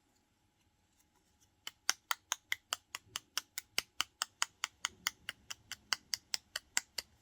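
A rapid, evenly spaced run of sharp clicks or taps, about five a second, starting about two seconds in and stopping near the end.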